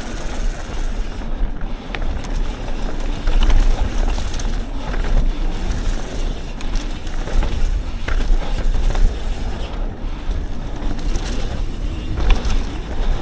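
Yeti SB 150 mountain bike ridden along a dirt trail: wind rushing over the microphone and a tyre rumble, with scattered rattles and knocks from the bike over bumps.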